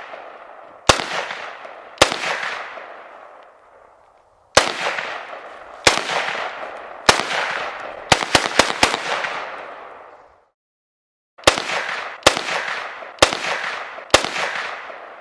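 AR-15 rifle in 5.56 firing about thirteen semi-automatic shots at an uneven pace, including a quick string of four, each crack trailing off in a long echo.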